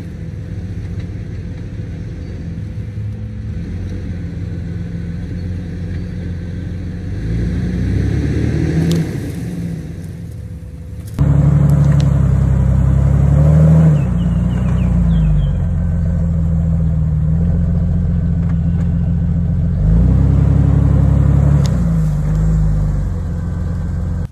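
Jeep Wrangler TJ engine running slow and steady as it pulls an arborvitae over on a tow strap, with the pitch rising briefly a couple of times as it takes the load. The engine suddenly gets louder about eleven seconds in.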